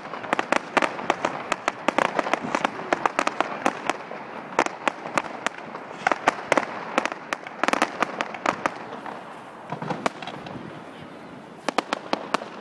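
Fireworks going off: a rapid string of sharp pops and crackles from bursting aerial effects. The string thins out after about nine seconds, then a few more cracks come near the end.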